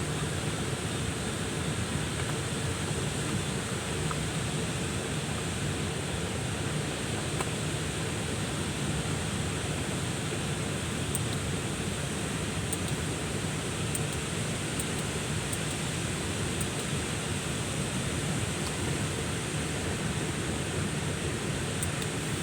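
Steady rushing of water, an even hiss-like noise with a few faint high ticks in the second half.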